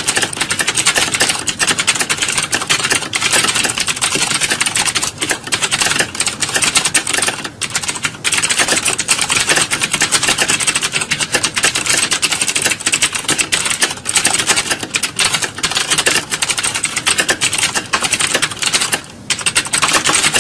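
Fast, continuous typing on a keyboard: a dense stream of rapid key clicks, broken by two brief pauses, one about a third of the way in and one near the end.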